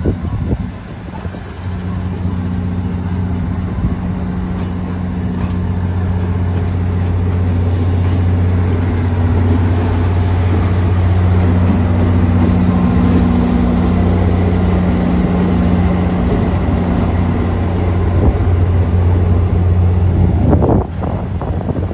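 Diesel engine of New Haven-liveried locomotive No. 2011 running with a steady low drone as it moves a passenger train slowly past, with the rumble of the rolling cars. The sound grows a little louder as the locomotive comes close and drops off suddenly near the end.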